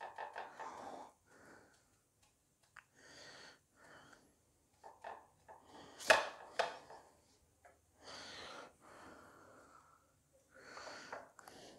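Hands working cutlet balls in dry breadcrumbs on a ceramic plate: intermittent soft scraping and rustling with a few light clicks of plates being handled, and one sharp knock about six seconds in.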